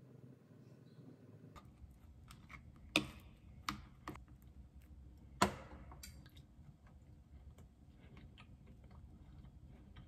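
A few sharp clicks and knocks, the loudest about three and five and a half seconds in, with lighter taps between: a fork, a squeeze bottle and a plastic lunch container being handled on a countertop.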